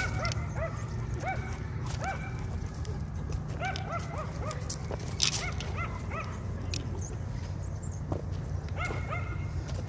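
A dog giving short, high, whining yips over and over, irregularly spaced, while it plays with another dog. A few sharp clicks are heard, the loudest about halfway through.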